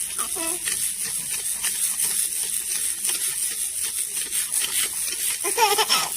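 Infant making excited vocal sounds: a brief coo early on and a louder rising-and-falling squeal near the end, over a steady high hiss with light rustling and clicks.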